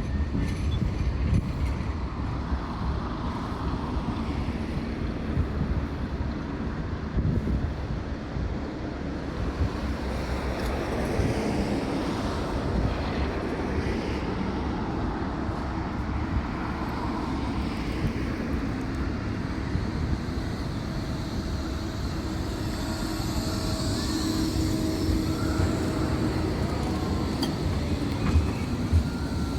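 Tram running along the street track with a steady low rumble, wind buffeting the microphone.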